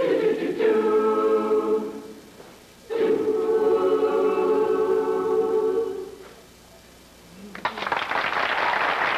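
High-school swing choir of mixed voices singing two long held chords, each about two to three seconds, with a short break between them. Audience applause breaks out about a second and a half before the end.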